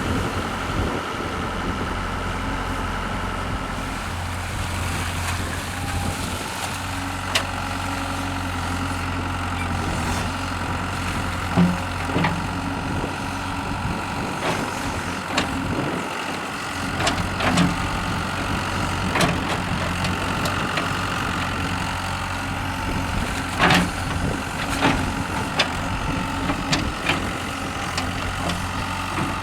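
Hitachi hydraulic excavator's diesel engine running steadily, with scattered sharp clanks and knocks.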